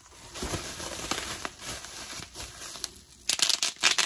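Plastic bubble wrap pulled out of a cardboard box and crumpled in the hands, crinkling steadily, then louder crackling near the end.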